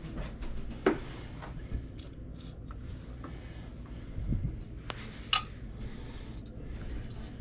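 Scattered light clicks and knocks of handling as a small brass figural mantel clock is lifted off a wooden table and turned over in the hand, over a low steady hum.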